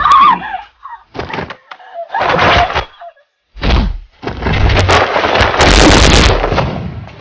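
Dubbed fight sound effects: a few short swishes and a thud, then a rushing whoosh that lasts about three seconds.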